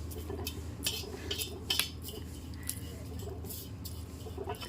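Irregular light clinks and clatter of small hard objects, several scattered through, over a low steady hum.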